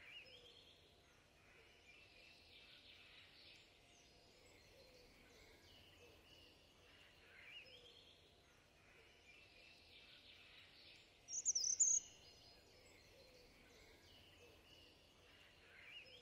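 Faint birdsong over quiet outdoor ambience: repeated small chirps and trills, with one much louder high-pitched call about eleven seconds in.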